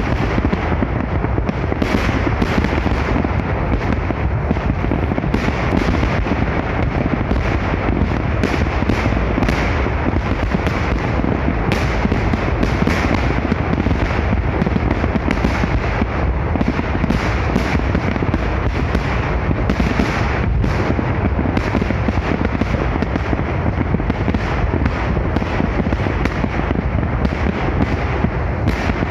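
Large fireworks display: a dense, continuous barrage of salvos, many overlapping bangs and crackles with no pause.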